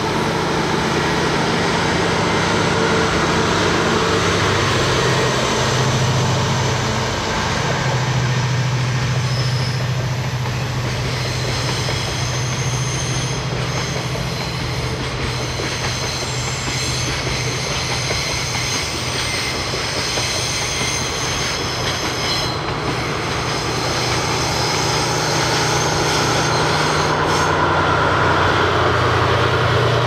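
DF200 diesel-electric locomotive hauling a long container freight train round a curve: the locomotive's diesel engine drones steadily as the wagons roll past. High wheel squeal from the curve sets in about ten seconds in and fades near the end.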